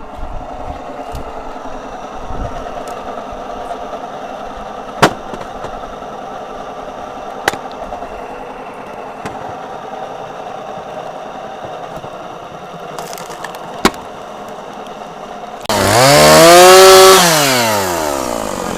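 Stihl chainsaw engine running steadily at idle, with three sharp knocks, then revved hard near the end: the pitch rises and then falls back over about two seconds.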